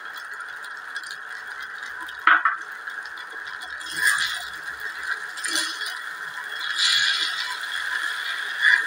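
A metal spoon scraping and clattering against a stainless steel pan as a thick mix of tapioca pearls and potato is stirred, in separate strokes every second or two over a steady hiss.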